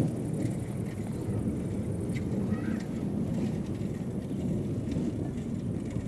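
Steady low rumble of wind buffeting the microphone while riding a bicycle into a gusty pre-storm wind, with one brief thump at the very start.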